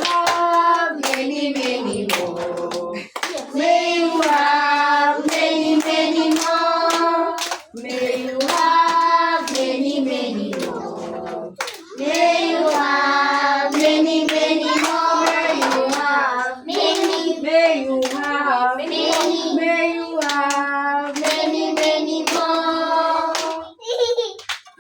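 A group of children singing together in phrases a few seconds long, with hand claps throughout.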